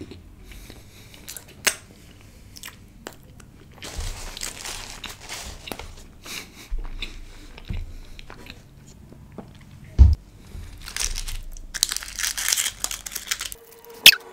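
Close-miked eating of chocolates and chocolate snacks: chewing and crunching, with a wrapper crinkling and tearing in two longer stretches and two sharp snaps, one about ten seconds in and one near the end.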